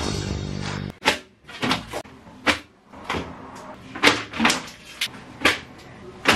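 About six short, sharp knocks and clacks of objects handled on a hard surface, coming irregularly over about five seconds, after background music cuts out about a second in.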